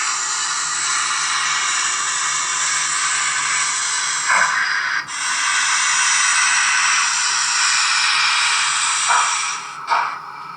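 Digital sound of an H0 model steam locomotive hissing steam from its small speaker: a steady hiss that breaks off briefly about five seconds in, then a few short puffs near the end.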